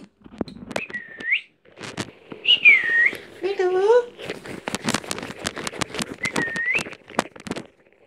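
Lutino Indian ringneck parakeet whistling: three short whistles that dip and rise, a brief wavering call a little before halfway, then a rapid run of sharp clicks through the second half.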